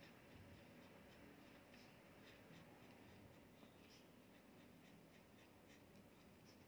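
Pen writing by hand on a paper workbook page: faint, irregular scratching of short pen strokes.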